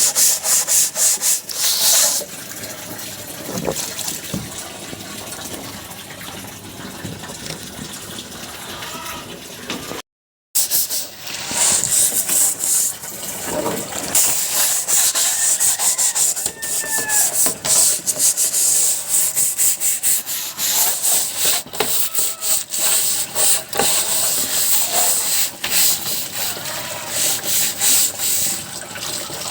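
Chicken-cage droppings tray being scrubbed: fast, repeated rubbing strokes with a hissy scrape, broken by a brief gap about ten seconds in.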